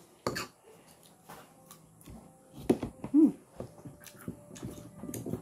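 Eating sounds: crisp wax apples (tambis) being bitten and chewed, with light clicks of a spoon and fork on dishes. About three seconds in comes a loud click and then a short rising-and-falling whine.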